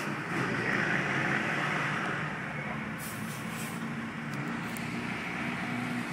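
Car engine hum and road noise heard from inside the cabin of a car driving through city traffic.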